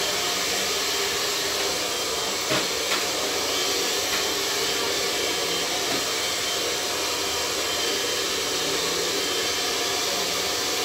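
Handheld hair dryer blowing steadily while hair is brushed through, with a couple of faint clicks about two and a half seconds in.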